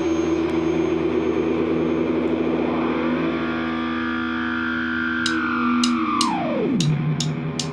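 Distorted electric guitar through effects pedals, holding droning notes while a layer of the sound glides up in pitch, holds, then slides back down low. Sharp high ticks come in over the last couple of seconds, about two a second.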